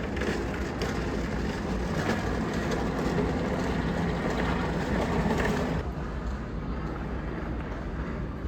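Roller coaster train running along its track, a steady rumble with no clear pitch that ends abruptly about six seconds in.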